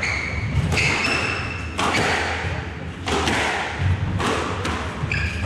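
Squash rally: the ball is struck by rackets and smacks off the court walls with sharp thuds about a second apart, while the players' shoes squeak on the wooden floor.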